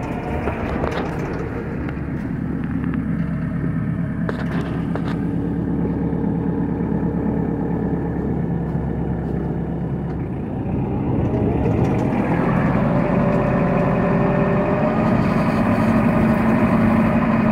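A Montana 60 hp 4x4 tractor's diesel engine running steadily, heard from inside the cab. About two-thirds of the way through it revs up and gets louder.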